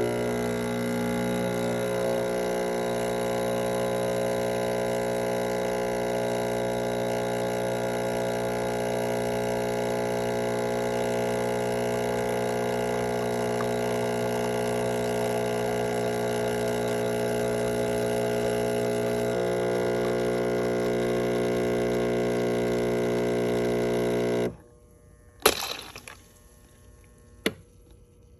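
Espresso machine pump humming steadily while pushing water through the coffee puck during the shot, then cutting off suddenly about 24 seconds in as the shot ends. Two sharp clicks follow.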